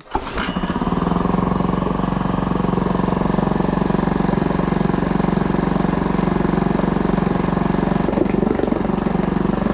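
Honda BF2DH 2 hp single-cylinder four-stroke outboard motor running steadily at a constant speed. It comes in suddenly right at the start.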